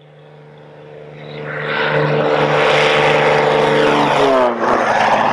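Agricultural spray plane making a low pass: its engine and propeller drone grows louder as it approaches, then drops sharply in pitch about four seconds in as it goes by.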